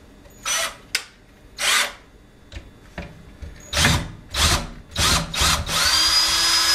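Power drill-driver run in several short bursts, then held for a longer steady run with a whine near the end, driving out a screw.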